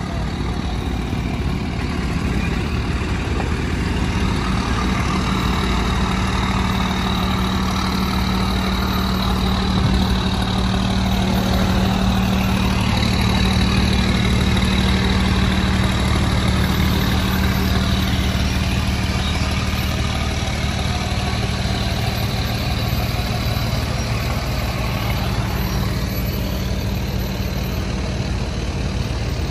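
Pickup and hauler trucks towing race boats on trailers, their engines running in a steady drone.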